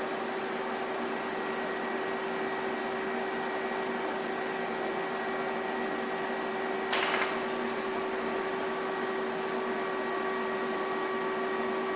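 Steady electrical hum with several fixed tones from the TIG welding setup as steel fuselage tubes are tack-welded, broken about seven seconds in by a short, sharp hiss.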